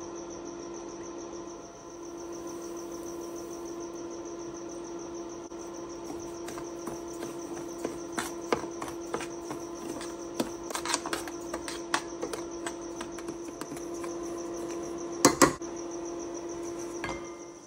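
A metal spoon scraping and clinking against a stainless steel pan as dry semolina is stirred and roasted, starting about six seconds in, with a louder double knock near the end. Under it is a steady high-pitched whine and a lower hum.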